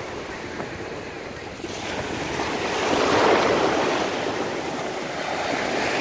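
Mediterranean surf washing in over shallow water. A wave surges up to its loudest about three seconds in, and the wash builds again near the end as the next wave breaks.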